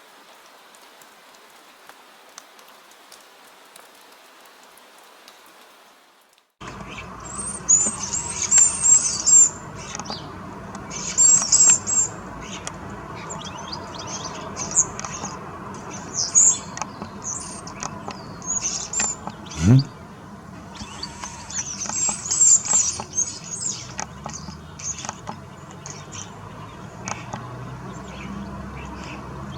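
Soft, even rain for about the first six seconds, then an abrupt change to garden birds chirping and calling: bright, high chirps in repeated clusters over a steady background. About two-thirds of the way through, one brief low rising sweep.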